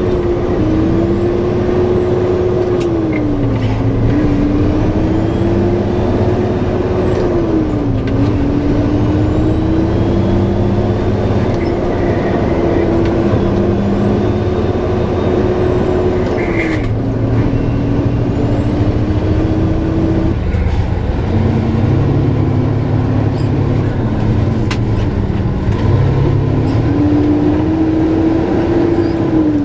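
Truck engine running under way, its pitch climbing through each gear and dropping abruptly at several gear changes.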